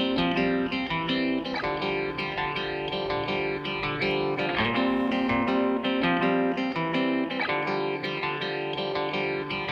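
Background music led by guitar: plucked notes over steady sustained chords at an even pace.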